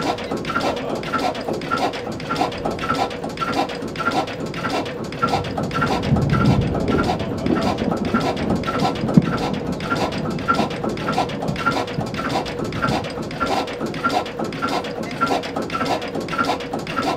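1928 Modag D4 stationary engine running steadily, its mechanism clicking and beating in an even rhythm over a constant hum. A low rumble swells up for a few seconds midway.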